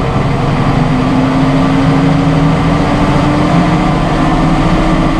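Massey Ferguson 7624 tractor's 7.4-litre AGCO Power diesel, heard from inside the cab, speeding up steadily as the throttle is raised with the 1000 PTO engaged, its pitch climbing slowly as the PTO comes up toward 1000 rpm.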